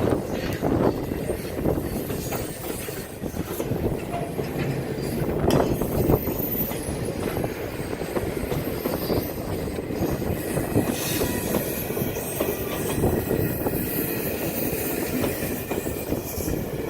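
Strasburg Rail Road passenger train rolling along the track: a steady rumble of steel wheels on rail with many irregular clicks and knocks.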